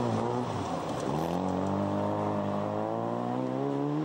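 Rally car's engine at full throttle as the car passes and drives away on a gravel stage. Its pitch dips briefly early on and then climbs steadily in one long pull for the rest of the clip.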